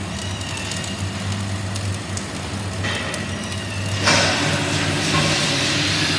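Arc welding on ducting pipe: a crackling, hissing arc over a steady low hum, the arc growing louder and brighter about four seconds in.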